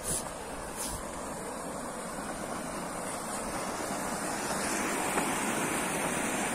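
River water pouring over a low concrete weir, about half a metre high, and churning in the strong hydraulic at its foot: a steady rushing that grows gradually louder.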